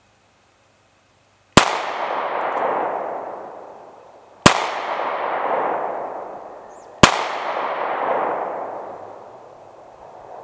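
Three handgun shots, about three and then two and a half seconds apart, each followed by a long rolling echo that dies away over two to three seconds.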